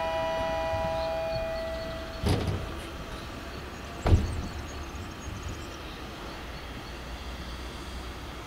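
A three-note chime fading out, then two sharp knocks about two seconds apart, the second the louder, over a low steady rumble, heard from a passenger train standing at a station platform.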